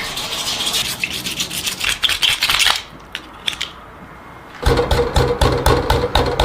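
Scratchy rubbing and scraping with quick clicks for about three seconds, then a few scattered clicks. Strummed guitar music comes in about two-thirds of the way through.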